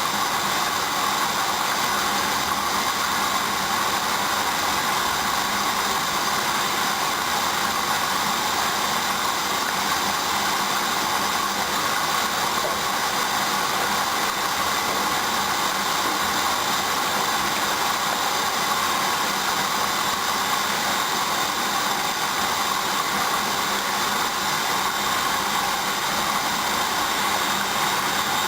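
Hoover Dynamic washing machine running steadily through the main wash of its duvet programme.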